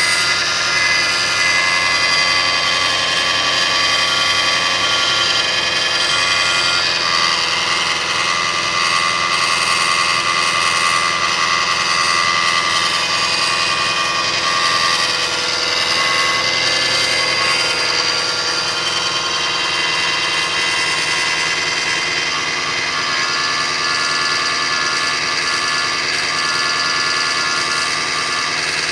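2005 Kia Sedona's 3.5-litre V6 idling with a steady high-pitched whine over the engine. The noise came on as the engine warmed up after a new timing belt, tensioners, idler and water pump were fitted, and it goes away at higher RPM.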